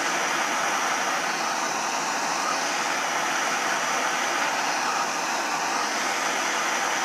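Hand-held gas torch burning steadily with an even hiss as its flame heats aluminum to about 735 degrees, the point at which the brazing rod will melt.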